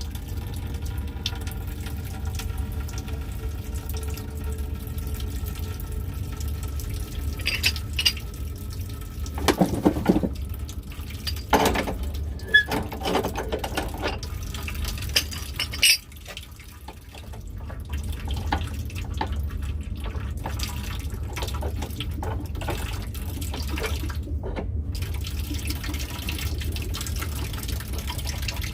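Water running out of the opened well-system plumbing as it drains down, with a few sharp knocks and clanks in the middle. The flow sound cuts off suddenly about halfway through and builds back up a couple of seconds later.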